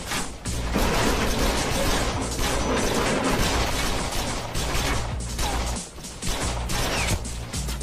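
Action-scene soundtrack: dramatic music under a dense run of sharp hits, gunshots and crashes, that barely lets up.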